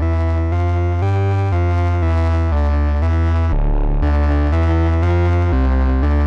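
Synthesizer line played through the Glitchmachines Subvert distortion plugin: a sequence of gritty, overtone-rich notes changing about twice a second, over a heavy bass.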